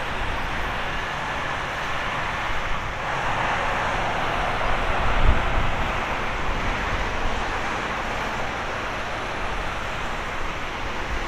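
Airbus A320neo's Pratt & Whitney PW1100G geared turbofan engines running at taxi power, a steady jet rush that swells about three to six seconds in as the aircraft rolls past, with a low thump near the middle.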